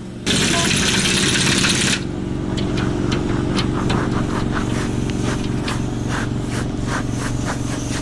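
Air impact wrench hammering in one loud burst of about a second and a half, taking the bolts off a worn snowplow cutting edge. An engine runs steadily underneath, and scattered light clicks and knocks follow the burst.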